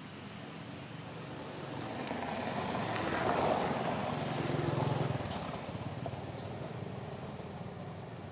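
A motor vehicle passing by: its engine noise swells to a peak around the middle, then fades away.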